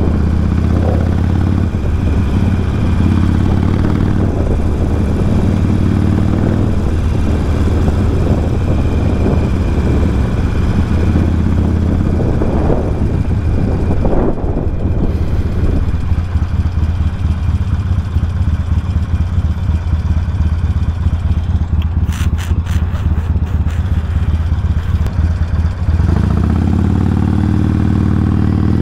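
Harley-Davidson V-twin motorcycle engine running under way, its pitch climbing and dropping with the throttle. For about ten seconds in the middle it settles to a lower, steadier note, with a brief patch of sharp clicks, then it revs up again near the end.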